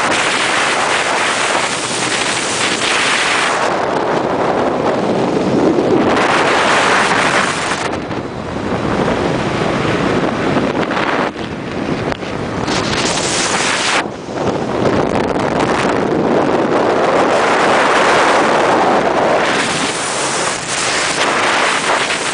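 Wind buffeting the microphone of a camera held out from a moving motorcycle, swelling and easing every few seconds, with the Harley-Davidson Sportster 883's air-cooled V-twin running underneath.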